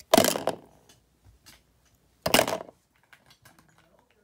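Two short, loud clatters about two seconds apart as a black plastic toolbox is handled, with faint small ticks between them.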